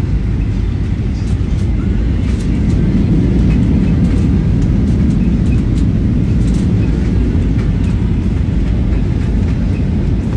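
Passenger airliner cabin noise: a steady, loud low rumble of the engines and airflow heard from inside the cabin, with a few faint clicks.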